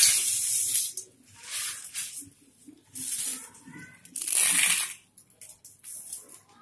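A hand scooping and crumbling crisp fried aloo bhujia sev on a steel plate: dry crunchy rustling in about four bursts, fainter near the end. The crackle is the sign that the sev is fried crisp.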